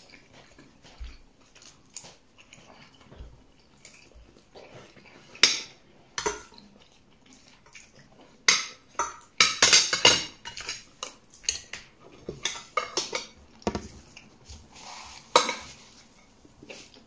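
Metal fork and spoon clinking and scraping against a plate as food is eaten: irregular sharp taps, with a quick flurry of clinks about ten seconds in.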